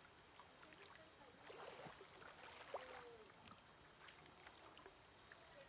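Steady high-pitched insect chorus, one constant drone, with a faint trickle of water swelling for a second or so midway and a few faint chirps.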